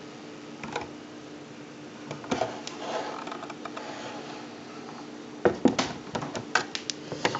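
Sodrtek FX50 soldering fume extractor fan running with a steady hum. A brief rustle comes a couple of seconds in, and a cluster of sharp clicks and knocks of handling comes in the second half.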